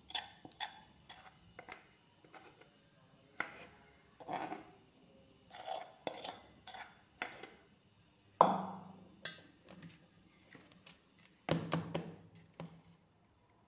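Steel spoon scraping and tapping against a steel plate as sticky sesame-jaggery mixture is spread and pressed into it: a run of short clicks and scrapes, with two louder clangs that ring briefly, one a little past the middle and one near the end.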